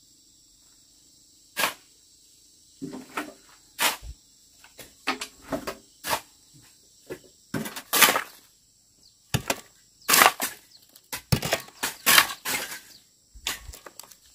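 Metal shovel scraping and digging into dry, stony dirt and throwing it, in a run of irregular scrapes and crunches, some much louder than others.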